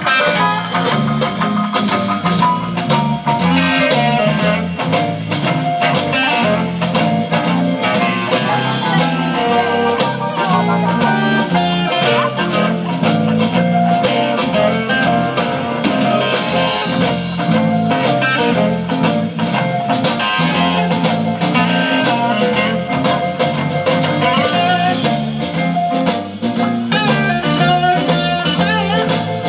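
Live band playing an instrumental stretch with no vocals: electric guitars over a steady drum-kit beat.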